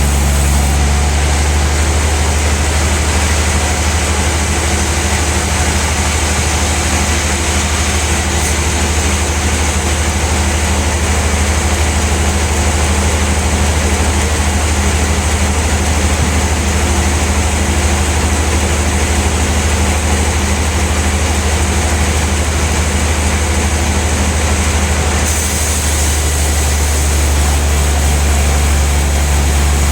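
Large sawmill band saw and its machinery running steadily with a deep, even hum.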